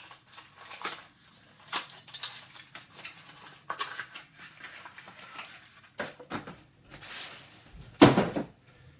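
A plastic vacuum attachment tool being handled and unpacked: scattered rustles and light clicks and knocks, with one louder knock about eight seconds in.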